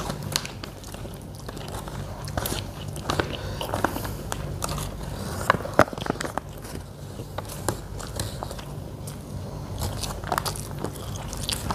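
A person eating close to the microphone: chewing and biting, with many irregular crunches and small clicks, over a steady low hum.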